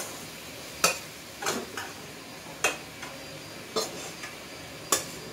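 Metal spatula scraping and clinking against a steel kadai while working a thick, mashed pumpkin curry. There is a sharp clink about once a second.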